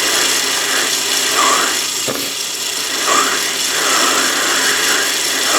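Myford ML7 lathe running while a parting tool in a rear tool post cuts into brass bar: a steady rasping cutting noise with a short warbling tone that comes back roughly once a second.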